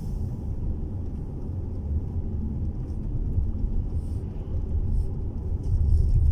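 Steady low rumble of a car on the move, heard from inside its cabin: engine and tyre noise.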